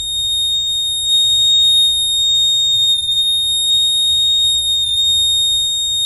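Buzzer of a homemade transistor fire-alarm circuit sounding one steady, high-pitched tone without a break, set off by the circuit detecting fire.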